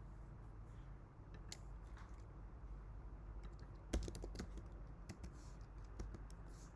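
Typing on a computer keyboard: irregular key clicks, sparse at first and bunched about four seconds in.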